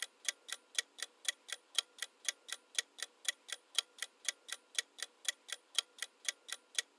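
Clock-ticking sound effect for a quiz countdown timer: a steady run of sharp ticks at about four a second.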